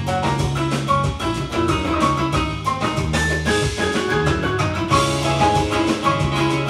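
Upbeat samba music with a steady drum beat and a quick run of short, bright, plucked- or mallet-like notes.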